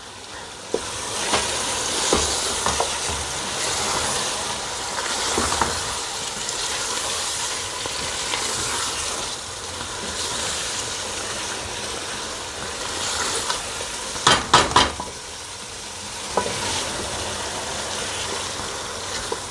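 Chicken and onion-tomato masala sizzling as it fries on high heat in an aluminium pot, stirred with a spoon in slow strokes. A quick cluster of sharp knocks comes about three quarters of the way through.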